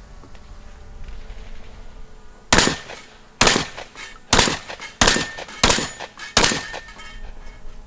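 Six gunshots fired at a steady pace a little under a second apart, each with a short ringing tail.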